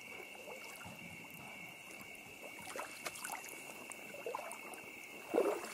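Shallow creek water trickling, with small splashes and sloshes from wading and searching the shallows, over a steady high-pitched drone. One louder slosh comes near the end.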